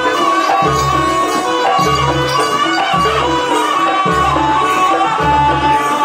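Traditional jaranan Banyuwangi ensemble music for the horse dance: a wavering melody over hand drums, with a deep beat a little over once a second.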